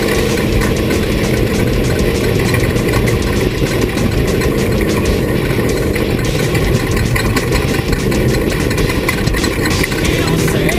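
Off-road race vehicle's engine running steadily, with many short rattles and knocks over it.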